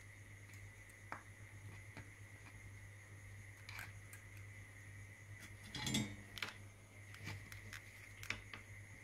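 Light clicks and ticks of fingers handling a small perfboard and bending thin component leads through its holes, with a louder clatter about six seconds in. A steady low electrical hum runs underneath.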